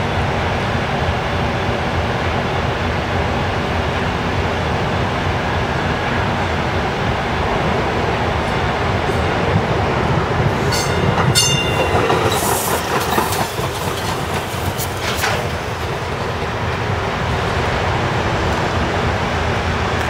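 MARC MP36PH-3C diesel locomotive's 16-cylinder EMD 645 engine rumbling steadily at the platform. About halfway through there is a brief high wheel squeal, followed a few seconds later by a few rail clacks as a light rail train approaches.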